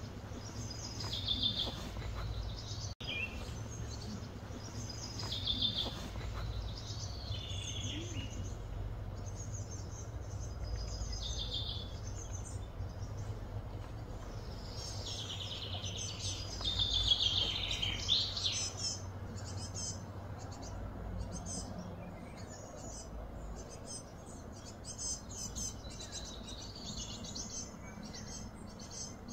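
Outdoor ambience of birds calling: short, quick, falling chirpy phrases repeated every few seconds, the busiest burst a little past the middle. A rapid high buzzing takes over in the last third, over a steady low rumble.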